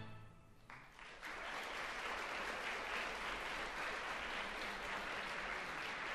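The last note of the routine music dies away, then audience applause breaks out about a second in and continues steadily.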